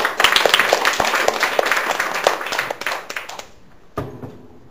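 Small audience applauding, dying away about three and a half seconds in, followed by a single thump.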